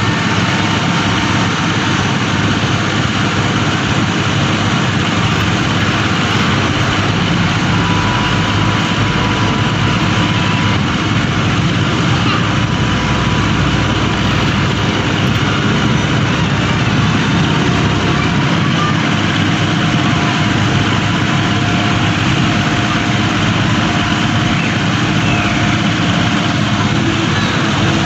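A steady, loud, even rushing noise with a low hum, of the kind a running engine or moving vehicle makes.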